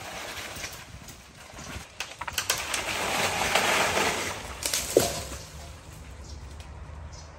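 Leaves and dry branches of a dead jackfruit tree rustling and cracking as it is pushed over, swelling about halfway through, followed by one sharp crack about five seconds in.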